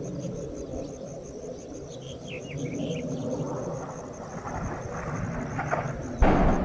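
Crickets chirping in a steady pulse over a low background rumble, with a few short high chirps about two seconds in. About six seconds in, the blast of a distant large explosion arrives: a sudden deep boom, the loudest sound.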